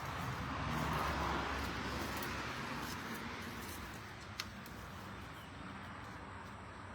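A vehicle passing, heard as a steady rush that swells about a second in and then slowly fades.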